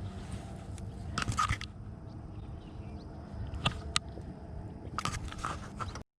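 Scattered clicks, crackles and scrapes of close handling over a low steady rumble, cutting off abruptly near the end.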